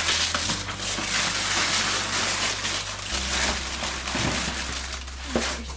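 Paper packaging rustling and crinkling as it is handled, a dense run of small crackles throughout.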